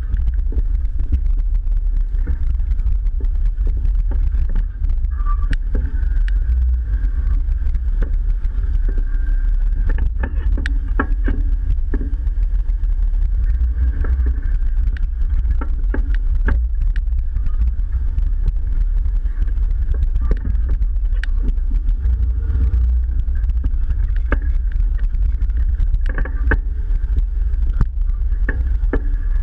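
Jeep engine running at low speed as it crawls over a rough, rocky dirt trail, heard as a heavy low rumble through the hood. Scattered sharp knocks and clunks from the body and suspension come over the rocks.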